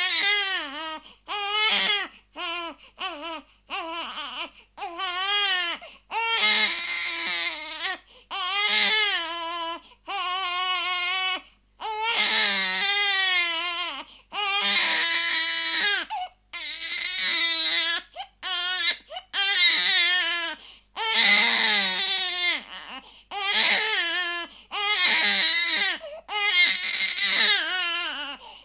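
Infant crying hard in repeated wails, each cry one to two seconds long with a quick breath between, the cries growing louder and shriller after the first few seconds.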